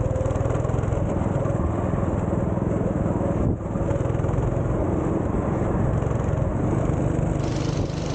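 Go-kart's small petrol engine running at speed, heard close up from the kart, with a brief drop in loudness about three and a half seconds in.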